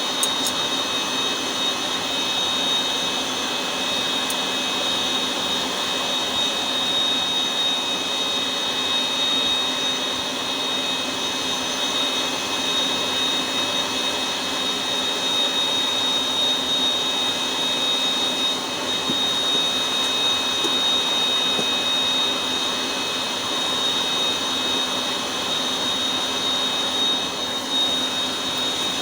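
Forge burner running: a steady rushing noise with a high, unchanging whine over it.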